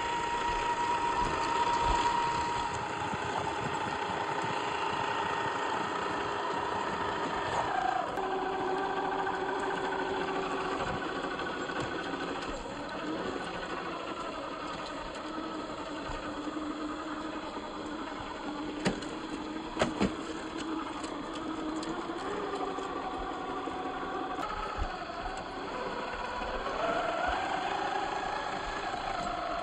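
A small electric motor running with a whine. The whine holds one pitch for several seconds, then drops or rises to a new one as the speed changes, and there are two sharp clicks about two-thirds of the way through.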